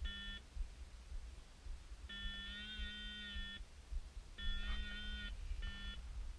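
Electronic beeping in the K13 glider's cockpit: four steady-pitched beeps, short, long, medium and short, the long one warbling briefly in its middle. A low rumble of wind and airframe runs underneath as the winch launch begins.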